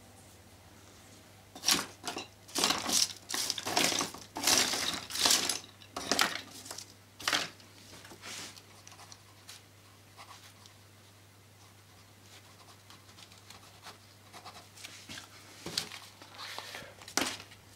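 A sheet of paper being handled and shifted about, rustling and crinkling in a quick run of bursts for several seconds, then again briefly near the end.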